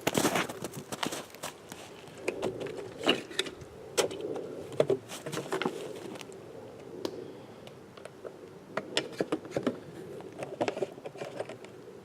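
Footsteps crunching irregularly on icy, crusted snow, mixed with small clicks and scrapes.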